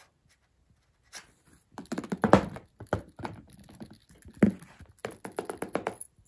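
A cat scrambling after its toy under a chair: irregular soft thumps and taps begin about a second in, with a quicker run of taps near the end.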